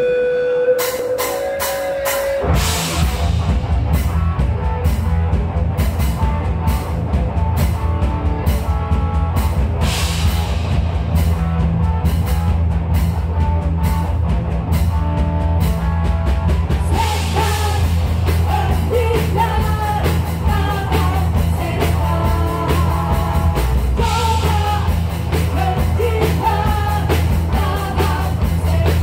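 Live rock band playing through a PA: a single held note, then about two and a half seconds in the drum kit and bass come in with a steady driving beat under electric guitars. Cymbal crashes mark each new phrase every seven seconds or so, and a melody line rises above the band in the second half.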